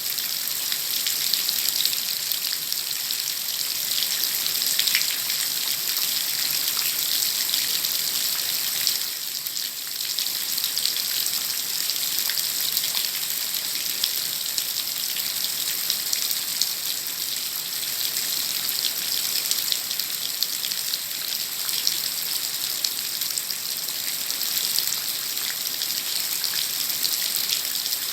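Heavy rain falling: a dense, steady hiss of drops with fine individual patters, easing briefly about nine seconds in.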